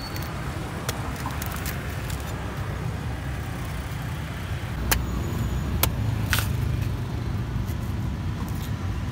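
Large knife chopping and slicing the husk off a palmyra palm fruit held in the hand, with a few sharp clicks as the blade strikes, loudest about five and six seconds in. Under it runs a steady low rumble of motor-vehicle noise.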